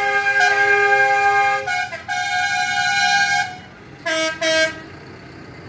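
Truck horns honking: a long, loud blast, another after a brief break, then two short toots near the end.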